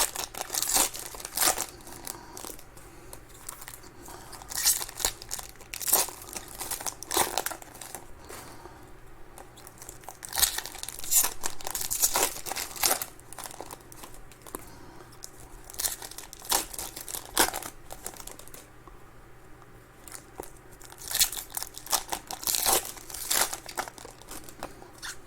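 Plastic wrappers of trading card packs being torn open and crinkled in the hands, with cards handled, in irregular bursts of crackling with short lulls.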